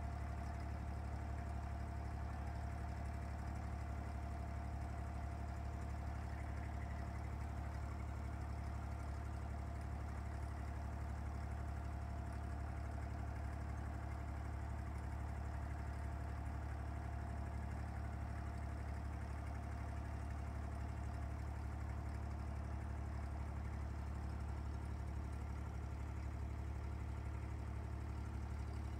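Diesel engine of a wooden abra water taxi running steadily under way: a constant low drone with a thin steady whine above it.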